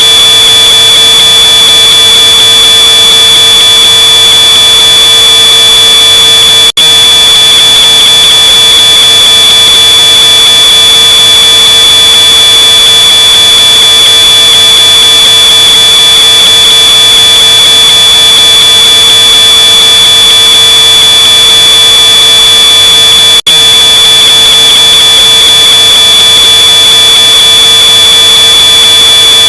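Smoke alarm sounding one continuous high-pitched tone, boosted to full loudness until it is harshly distorted. It cuts out for a split second twice.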